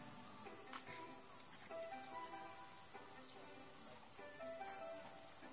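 Insects chirring in a steady, high-pitched drone, with faint music playing underneath.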